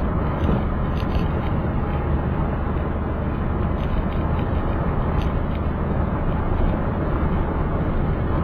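Car driving along a road: steady engine hum and tyre noise, with scattered light rattles.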